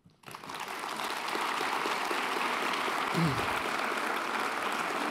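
A large audience applauding, with steady, dense clapping that starts abruptly a moment in. A brief voice cuts through about three seconds in.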